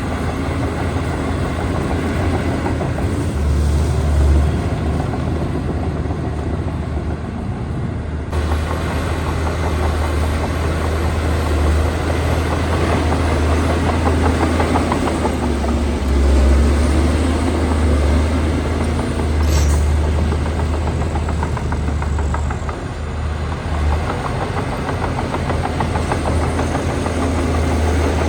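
Diesel engine of a Shantui DH17C2 bulldozer running steadily as it works, a continuous low drone with a brief sharp tick about two-thirds of the way in.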